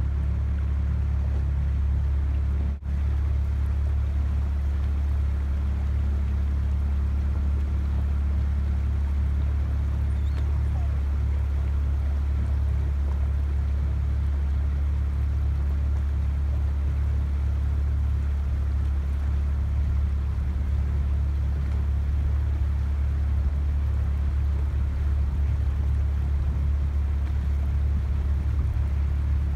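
A boat motor running steadily at constant speed, a loud, even low hum, with a brief dip about three seconds in.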